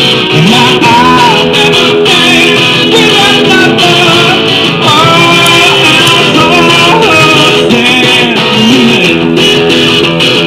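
Live rock-and-roll music: a strummed guitar with a man singing, recorded very loud.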